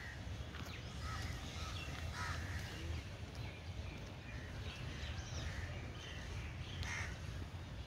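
Birds calling now and then in short calls over a steady low rumble.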